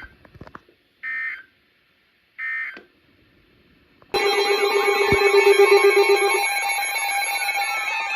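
EAS end-of-message data bursts on weather radio: short digital bursts at about one and two and a half seconds in, closing the tornado watch message. About four seconds in, a loud electronic alarm of several layered tones starts and keeps sounding, with a low warbling tone under it for its first two seconds.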